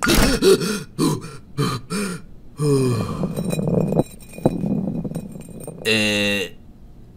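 A cartoon character's wordless vocal sounds: a run of short frightened grunts and gasps, then a falling sound a little before three seconds in. A brief buzzing tone sounds about six seconds in.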